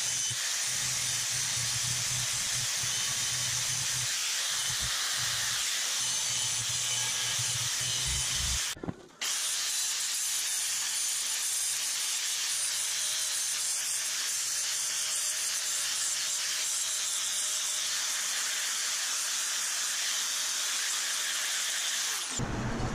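Angle grinder with a sanding disc smoothing a weld bead on thin aluminium sheet: a steady high hiss that breaks off for a moment about nine seconds in.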